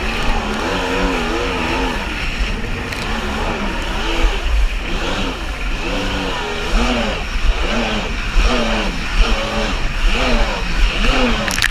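Kawasaki JS550 stand-up jet ski's two-stroke twin engine running at speed over choppy water, its pitch rising and falling about once a second, over the rush of wind and spray.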